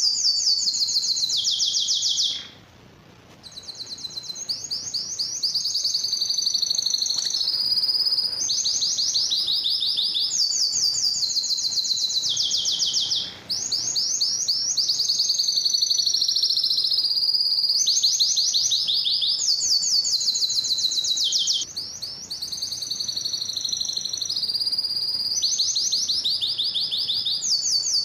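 Male domestic canary singing a long, high-pitched song of fast trills and rolling phrases, pausing briefly about two seconds in.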